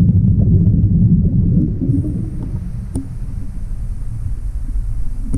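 Scuba diver's exhaled bubbles rumbling low, recorded underwater: a loud bubbling exhale for about two seconds, then quieter bubbling, with one sharp metallic click about three seconds in.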